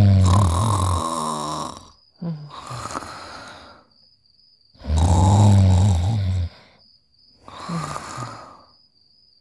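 Cartoon snoring on a two-part cycle: a loud, low, rumbling snore, then a shorter, lighter snore, and the pair repeats after a pause about five seconds later. A faint high steady tone runs in the pauses.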